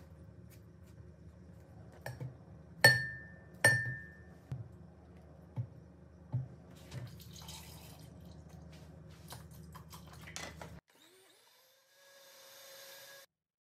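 Banana pieces dropped into a Philips blender's glass jug: two sharp knocks that ring briefly, then several softer thuds. Near the end the blender motor spins up with a rising whine and runs steadily for a couple of seconds.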